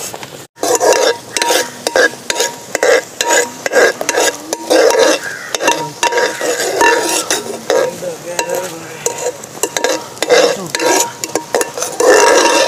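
Tomato sauce being stirred in a pan on the stove, a utensil scraping the pan in quick repeated strokes while the sauce heats with chilli powder, salt and pepper just added.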